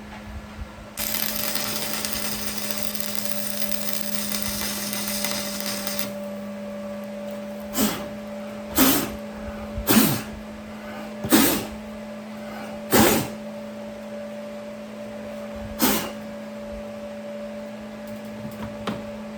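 Stick-welding arc from a small 110V inverter stick welder crackling and hissing for about five seconds, then six sharp knocks spaced a second or two apart, over a steady hum.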